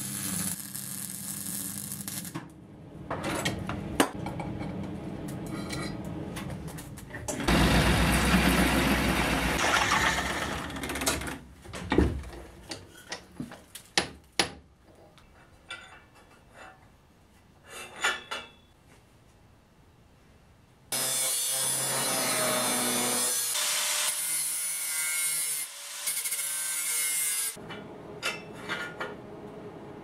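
Steel-fabrication sounds in short cuts: arc welding crackling at first, two long stretches of a power tool working steel, and sharp clicks and knocks of metal parts being handled between them.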